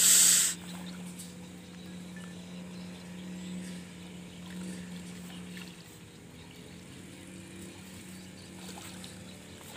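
A loud, brief water splash in the first half second as a hooked striped catfish (patin) thrashes at the pond surface during the fight. A low steady hum runs underneath and stops about six seconds in.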